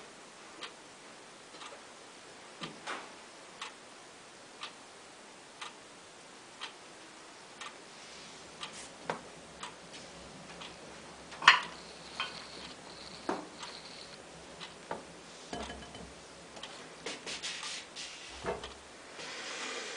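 Steady ticking about once a second. From about eight seconds in, irregular knocks and clicks are added, with one loud sharp click and a short clatter near the end: hands handling the slip applicators and the plate on the banding wheel.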